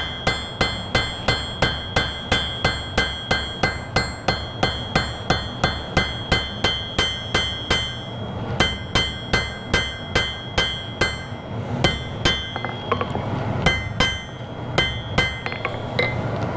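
Hand hammer striking a small iron workpiece on an anvil, about three blows a second, each with a bright metallic ring, as the piece is rounded out. The blows slow and come further apart in the last few seconds.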